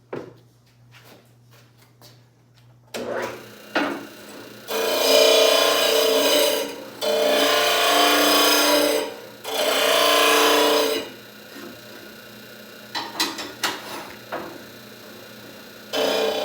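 A power tool run in three bursts of about two seconds each, with a steady motor pitch over a rough grinding noise, used to clean up the end of a pipe, followed by a few light knocks and another burst starting near the end.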